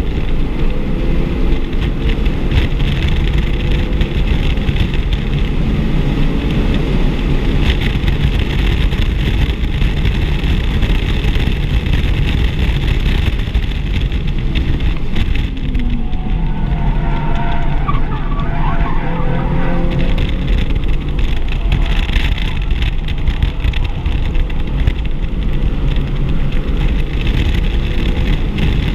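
Audi RS3's turbocharged five-cylinder engine running hard at track speed over 100 mph, heard from inside the cabin. The engine note is mixed with a steady roar of wind and tyre noise.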